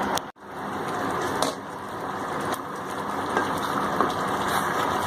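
Chicken simmering in korma gravy in a pan: a steady sizzle with scattered small crackles and pops.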